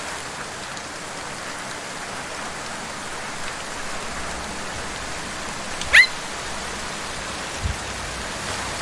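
A small puppy gives one short, high-pitched yip about six seconds in, over a steady hiss.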